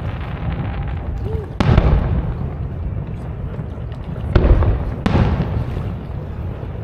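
Aerial fireworks shells bursting: three booms, the first about a second and a half in, then two more close together about three seconds later. Each boom trails off slowly.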